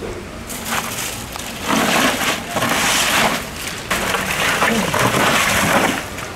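Crushed ice crunching and rattling in a styrofoam box as gloved hands dig through it and scoop it out, in two long spells starting about two seconds in.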